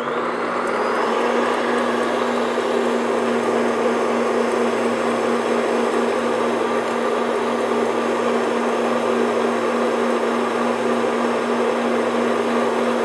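Stand mixer running at high speed with a wire whisk attachment, whipping egg whites and sugar into meringue: a steady motor whir with a constant hum tone.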